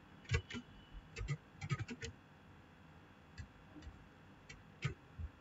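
About a dozen light, irregular clicks from a computer keyboard and mouse, some in quick runs of two to four.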